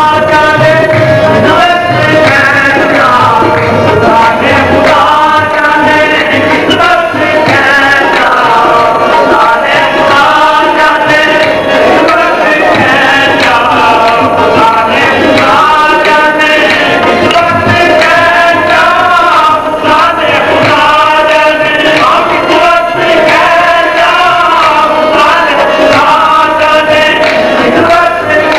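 Qawwali: male voices singing a devotional song over a steady tabla rhythm.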